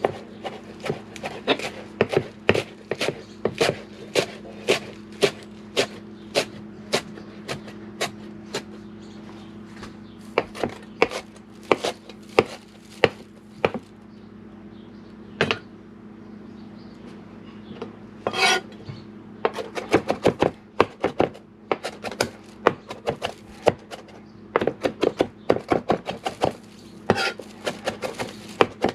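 Kitchen knife chopping on a cutting board: a long run of sharp, separate knocks, about two a second at first, a few scattered strikes in the middle, then a quicker run near the end, over a steady low hum.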